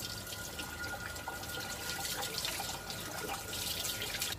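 Chicken in lemon masala sizzling and simmering in a covered pan, a steady hiss with small scattered crackles.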